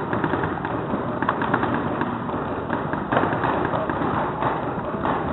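Paintball markers firing: rapid popping, many shots close together and overlapping.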